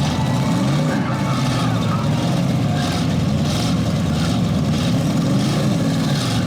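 Several stock car engines running and revving together, their pitch wavering up and down as the cars drive and push in the demolition derby arena.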